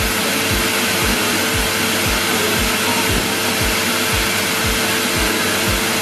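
Numatic Henry cylinder vacuum cleaner running steadily: an even rushing of air with a steady motor hum. A low thump repeats about twice a second underneath.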